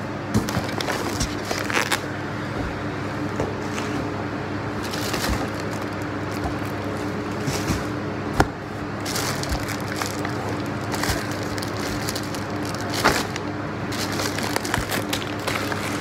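Groceries being handled in a cardboard box: plastic produce bags crinkling and rustling, with scattered crackles and a few sharp knocks, over a steady low hum.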